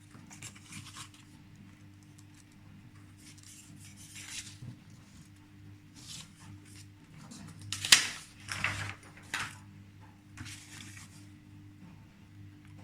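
Scattered rustling and scraping of small parts being handled on a workbench, with one sharp click about eight seconds in, over a steady low hum.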